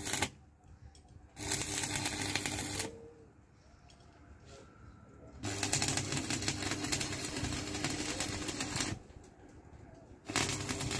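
Electric arc welding: the arc crackling and sizzling over a steady welder hum, in separate runs. One run ends just after the start, another lasts from about a second and a half to nearly three seconds in, the longest from about five and a half to nine seconds, and a new one starts near the end.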